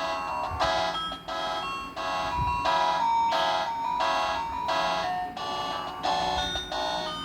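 Masstel Fami C3 mobile phone playing one of its built-in ringtones: an electronic melody of short chiming notes, about two a second.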